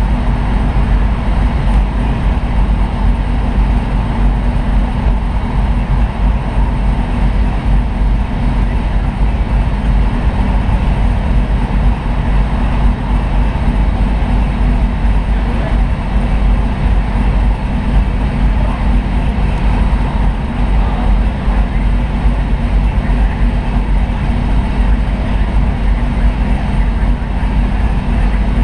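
Car engine idling, a steady low rumble with no revving.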